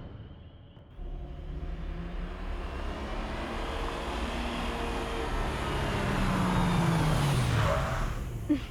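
A motor vehicle passing by: its sound builds for several seconds, drops in pitch as it goes past, then fades.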